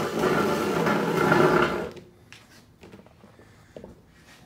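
Handling noise from the camera being picked up and turned, a dense rubbing on its microphone that stops about two seconds in, followed by a few faint clicks and taps.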